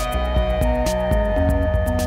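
Instrumental background music with a steady beat and a long held note.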